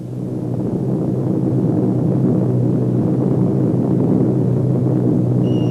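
Steady drone of multi-engine propeller aircraft, swelling over the first second or so and then holding level. Near the end a high whistle starts and slowly falls in pitch: the whistle of falling bombs.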